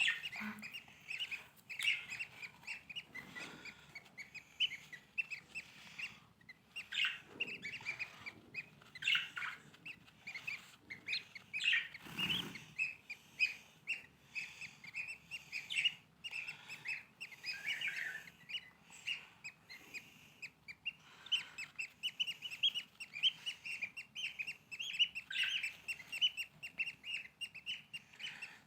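Lovebirds chirping in a rapid, continuous chatter of short high chirps, with a brief knock about halfway through.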